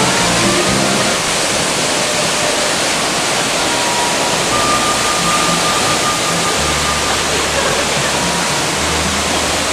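Gitgit Waterfall, a tall cascade pouring onto rocks, giving a loud, steady roar of falling water.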